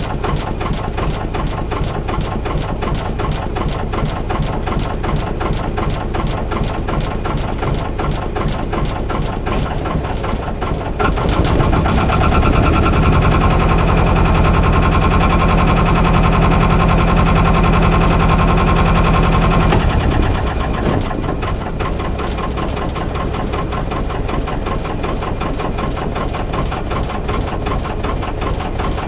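Albin 2D marine engine running with an even, regular beat. About eleven seconds in it grows louder for some nine seconds, then settles back to its earlier level.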